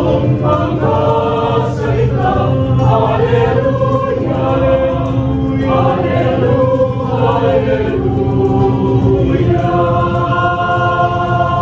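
Mixed choir singing in harmony, holding a long sustained chord over the last few seconds.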